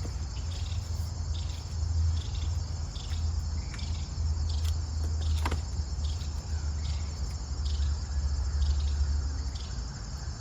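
Crickets chirping steadily in the background over a low, fluctuating rumble, with a faint click about halfway through.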